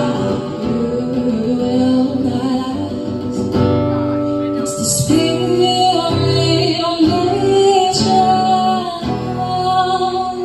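A woman singing live over her own strummed acoustic guitar, with chords ringing on under a wavering vocal line.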